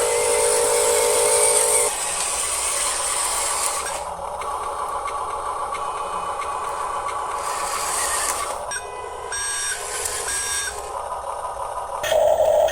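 Electronic sound effects from an RC construction truck's sound module: steady synthetic tones that shift every couple of seconds, with a run of short repeated beeps about nine seconds in.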